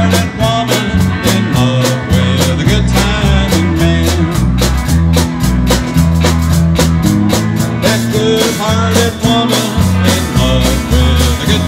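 Live rock band playing: electric guitars and bass over a drum kit. The drums keep a quick, even beat under strong bass notes.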